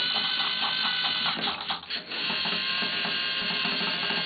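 LEGO Mindstorms NXT motors driving the tank-tread tracks of the racing game: a steady electric whine with rapid rattling clicks from the treads. The sound dips briefly about a second and a half in, then runs steadily again.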